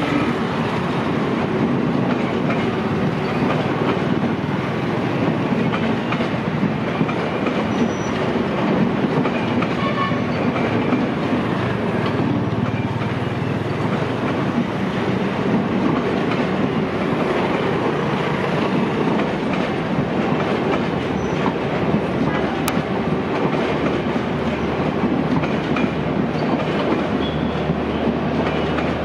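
Long string of LHB express passenger coaches rolling past at low speed, their wheels clicking steadily over rail joints and points. A low hum comes in near the end as the last coaches pass.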